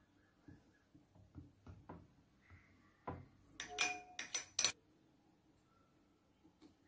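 Steel spoon clinking against a dish: a quick run of sharp ringing clinks about four seconds in, after a few soft taps of the spoon as oil is spread on the eggplant.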